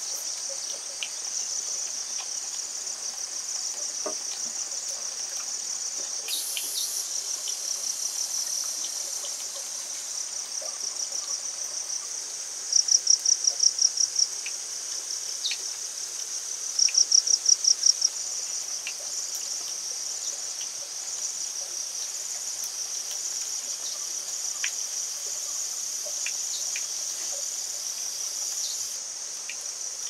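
Steady high-pitched pulsing chorus of insects. About halfway through, a nearby insect calls twice much louder, in two pulsed bursts of roughly a second and a half each.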